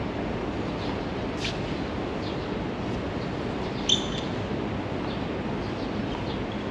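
A tennis ball struck once by a racket about four seconds in: a sharp pop with a brief high ring from the strings. It sits over a steady background hiss, with a few faint high chirps.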